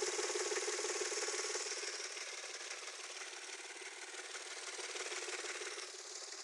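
KF-11 engine running with a rapid rattling knock from its timing belt idler pulleys and tensioner, which are worn and need replacing. The sound grows fainter about two seconds in.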